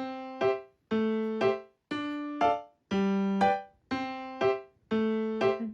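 Background music on a piano-like keyboard: a bouncy, repeating phrase about once a second, each a held note followed by a short accented note, with brief gaps between.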